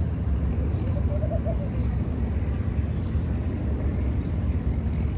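Steady low rumble of a moving metro train car, with faint voices in the background.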